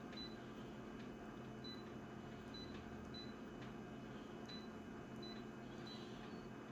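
Photocopier touchscreen control panel giving a short high beep at each tap of a finger, several times at uneven intervals, over a low steady hum.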